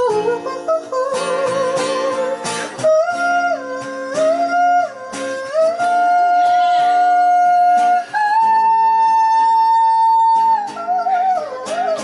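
Live song with guitar accompaniment between sung lines: a lead melody of long held notes that slide between pitches, wavering briefly about a second in, over steady guitar chords.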